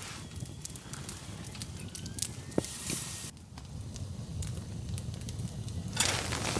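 Wood campfire crackling, with scattered sharp pops and snaps over a low steady rumble. Near the end a louder even hiss comes in.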